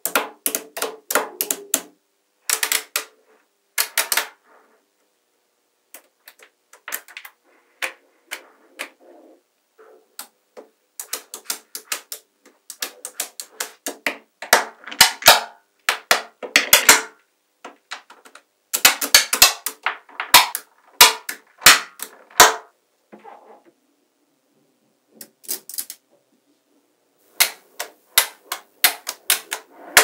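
Small magnetic metal balls clicking and snapping against each other as strips and clumps of them are pressed into place. The clicks come in quick irregular clusters, with a few short pauses.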